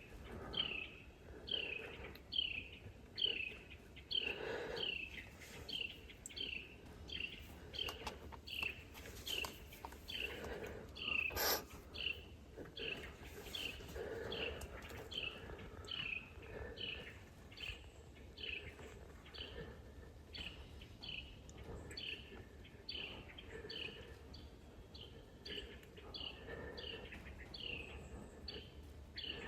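A bird calling steadily outdoors, repeating a short falling chirp about twice a second. A single sharp click sounds about halfway through.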